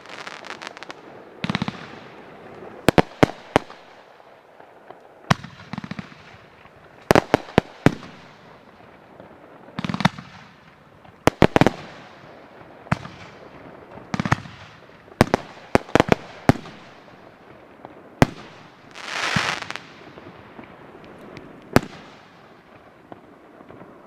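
Consumer fireworks fired from racks of tubes, going off in a string of sharp bangs, often two or three in quick succession, every second or two. About nineteen seconds in, one longer crackling burst.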